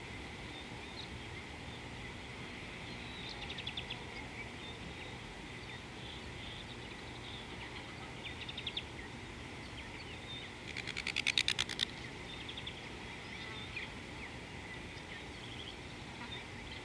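Birds calling in bushland: a steady high-pitched chatter throughout, with short bursts of rapid repeated notes about three and eight seconds in and a louder rattling trill about eleven seconds in.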